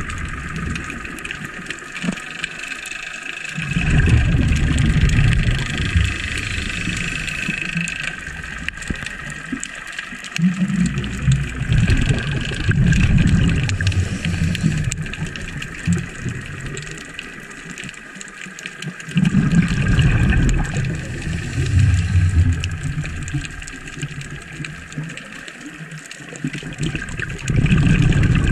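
Underwater recording of a scuba diver's exhaled bubbles from the regulator, rumbling and gurgling in four bursts of a few seconds each, about every eight seconds with each breath. A steady high hum runs underneath.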